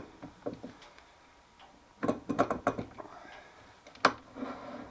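Metal parts and tools being handled and set down on a small lathe. A quick run of clicks and knocks comes about two seconds in, and one sharp knock just after four seconds.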